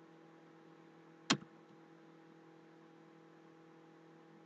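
A single sharp click about a second in, of the kind made at a computer while editing a document, over a faint steady hum of several tones.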